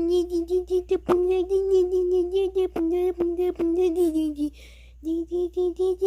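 A child's voice humming on one nearly steady note in short rhythmic pulses, with a few sharp mouth clicks. There is a brief pause with an intake of breath about two-thirds of the way through.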